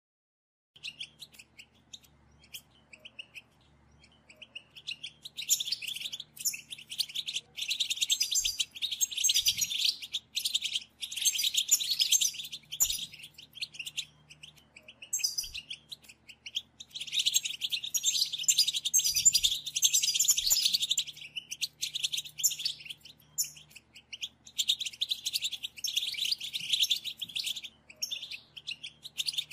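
European goldfinch song: fast, continuous twittering and trilling in long phrases broken by short pauses, after a few soft chirps in the first seconds.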